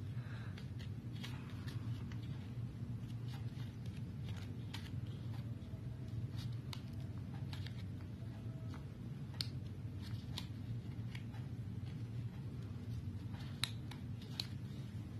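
Scissors snipping into a cut-out cup of paper-pulp egg tray, making a string of irregular small crisp snips as slits are cut for petals. A steady low hum runs underneath.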